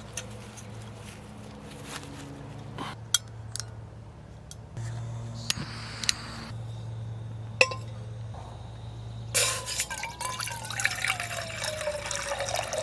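A few sharp clicks and metal clinks from a small gas camping stove and steel pot being handled. About nine seconds in comes a splashing pour of water from a bottle into the steel pot, with a falling tone.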